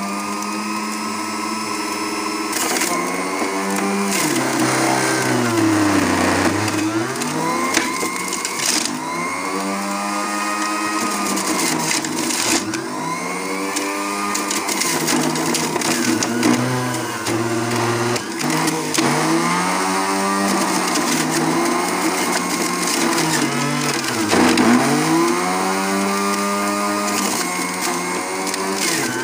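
Electric juicer motor running as carrots are pushed through it. Its pitch sags and recovers again and again as each carrot loads the motor.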